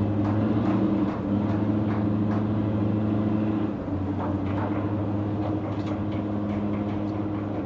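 Shipyard machinery running with a steady low drone, with faint, scattered clanks and ticks over it.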